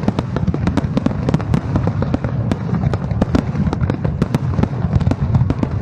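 Fireworks display going off: a dense run of sharp bangs and crackles, several a second, over a continuous low rumble of bursting shells.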